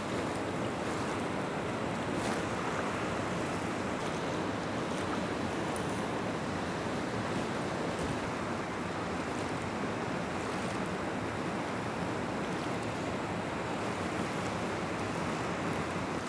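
Steady rush of river rapids: fast white water pouring over rocks.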